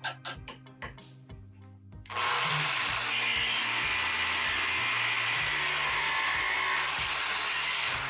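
A power tool working wood: a loud, steady rushing noise that starts about two seconds in and stops near the end, over background music with a steady beat.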